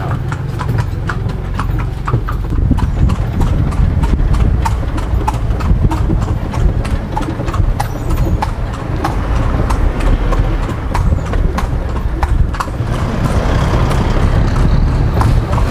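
Carriage horse's hooves clip-clopping on a paved road in a steady rhythm, about three hoof beats a second, over a steady low rumble.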